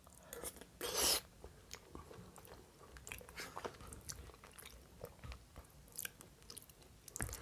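Close-miked mouth chewing a forkful of soft lasagna: faint, scattered wet smacks and clicks, with a louder wet mouth noise about a second in.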